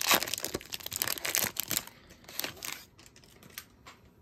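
Hockey card pack's plastic wrapper crinkling as the stack of cards is pulled out of it: a dense run of crackles, loudest at the start, that dies down about three seconds in to a few faint clicks of the cards being handled.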